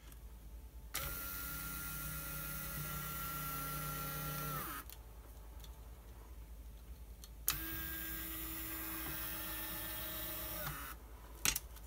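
The electric motor and gear drive of a Volvo RTI retractable navigation screen run twice with a steady whine, once each way as the screen goes up and down. Each run lasts about three to four seconds and ends with a short drop in pitch as the motor stops. There are about three seconds of quiet between the runs, and the second run has a different pitch from the first.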